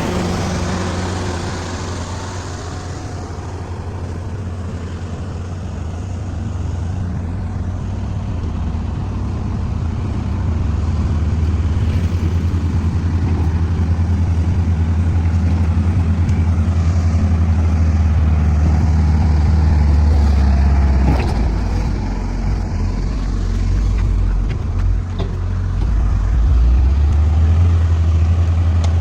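Komatsu bulldozer's diesel engine running under working load, a steady low drone that slowly grows louder, then drops lower in pitch about two-thirds of the way in.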